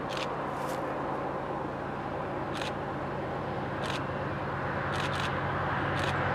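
Diesel locomotives of an approaching freight train, a GE ES44AH leading and an EMD GP38-2 behind it, running under power with the lead unit smoking; a steady low engine drone that grows slowly louder.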